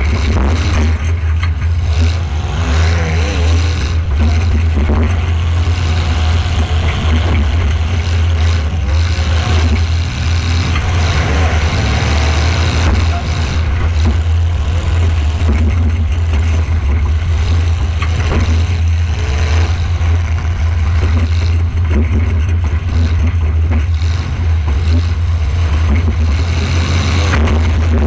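Demolition derby car's engine running loud and close, a heavy steady drone with its pitch wavering as the revs rise and fall. A few sharp knocks cut through it, near the middle and near the end.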